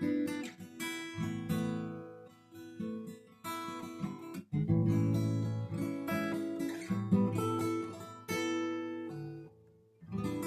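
Solo guitar playing a slow instrumental piece of plucked notes and strummed chords, with a brief break about four and a half seconds in and a chord left to die away near the end before playing resumes.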